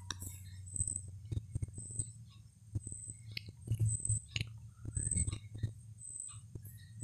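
Background room noise under a pause in the narration: a steady low hum, a faint high-pitched chirp repeating about once a second, and scattered small clicks and taps.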